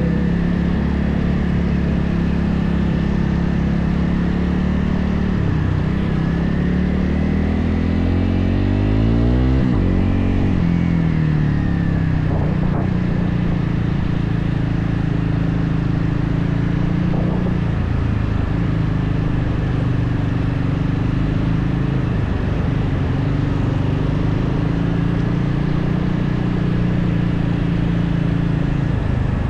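Motorcycle engine under way, pulling up in revs for a few seconds, then dropping sharply as it shifts gear about ten seconds in, and running fairly steadily after that.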